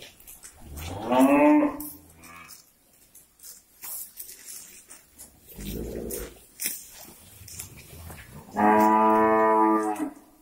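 Cattle mooing in a herd: a short moo that bends in pitch about a second in, a lower, quieter moo around the middle, and a long, loud moo held at a steady pitch near the end.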